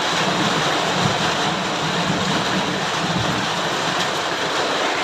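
Steady rain falling, an even hiss with a low, uneven rumble beneath it.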